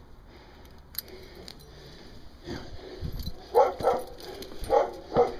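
A dog making short breathy sounds in quick bursts, about four of them in the second half, over footsteps on a path.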